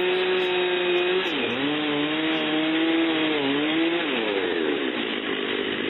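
Two-stroke chainsaw running at high revs in an Alaskan chainsaw mill, ripping a cedar log. Its engine note sags under load about a second and a half in, dips again, then falls away about four seconds in.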